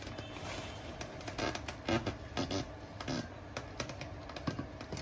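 Irregular light clicks and knocks, a few each second, as of parts being handled.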